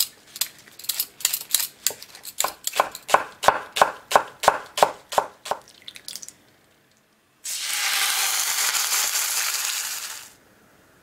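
Knife chopping garlic on a wooden cutting board, sharp strokes about three a second for the first six seconds. After a short pause, sliced sirloin steak and sauce sizzle loudly in a hot frying pan for about three seconds, starting and stopping abruptly.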